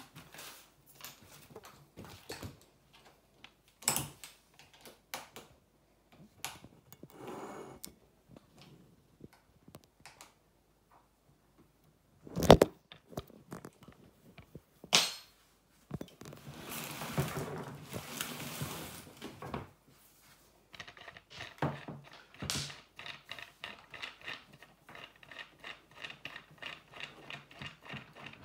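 Wooden legs and plastic parts of a baby changing table knocking and clicking as it is put together, with one loud knock about twelve seconds in and a rustling scrape a few seconds later. Over the last several seconds comes a quick run of clicks as a leg is turned in its socket in the plastic base.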